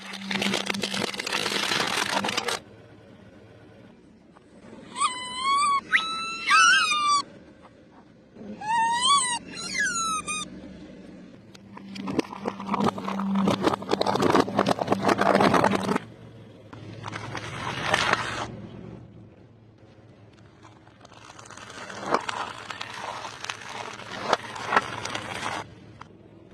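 Things crunching and crackling as a car drives over them, in several bursts separated by quieter gaps. About five and nine seconds in come two short runs of high, wavering squeals.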